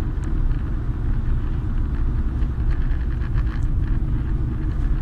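A vehicle driving along a road: the steady low rumble of engine and tyres.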